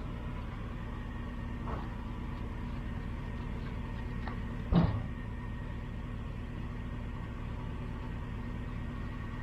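Truck engine idling steadily, with a single loud clunk a little under five seconds in.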